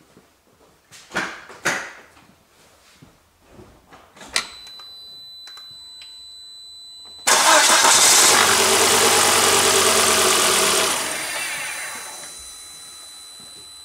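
Volvo 2.4-litre turbocharged five-cylinder petrol engine cranked over for about three and a half seconds, with a compression gauge fitted in one spark-plug hole, then fading away. Before it, two short knocks, a click and a faint steady high whine.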